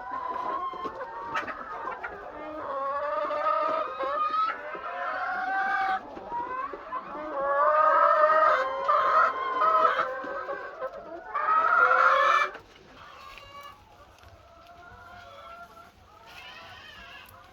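A large flock of laying hens clucking and squawking, many calls overlapping. The calling drops off sharply about two-thirds of the way through, leaving fainter clucking.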